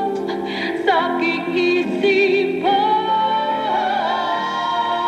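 A woman singing into a microphone over musical accompaniment, holding notes with a wavering vibrato.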